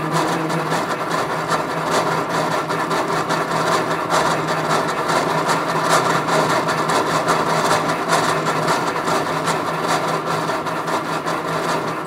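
Transducers vibrating the body of an overhead projector and a sheet of transparent paper, which act as loudspeakers: a loud, dense buzzing drone with steady hum tones and a fast flutter running through it.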